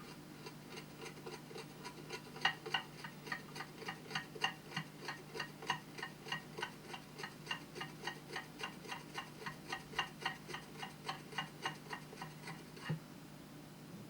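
A hedgehog scratching itself: a rapid, even run of clicks, about four strokes a second, that stops abruptly near the end.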